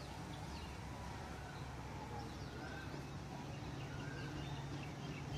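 Quiet outdoor ambience: scattered faint bird chirps over a low steady hum.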